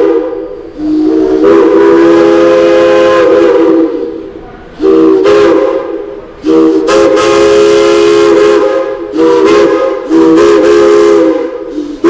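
Chime steam whistle blowing a chord of several notes at once, in a series of loud blasts of one to three seconds each, with steam hiss over the tones.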